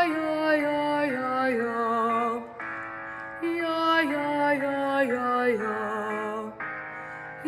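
A young female alto singing wordless descending runs on a vowel, one phrase after another with vibrato. There are short breaks between phrases, about two and a half seconds in and again near the end.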